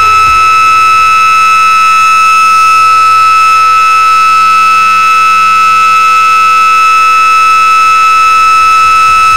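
Gas and smoke detector alarm sounding one loud, steady, unbroken tone, signalling that gas or smoke has been detected.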